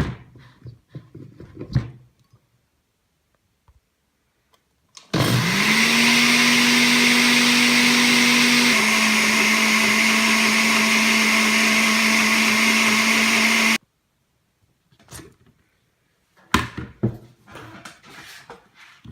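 Electric mixer grinder grinding a mint and coriander chutney in its jar: the motor spins up almost at once about five seconds in, runs with a steady high whine, drops a little in pitch about halfway, and cuts off suddenly after about nine seconds. A few light knocks come before and after it.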